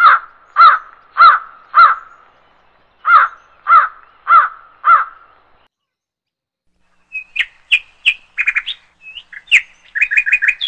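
Birds calling: a crow cawing in two runs of four loud caws about half a second apart, then a smaller bird's quick, higher chirps and short rapid trills in the second half.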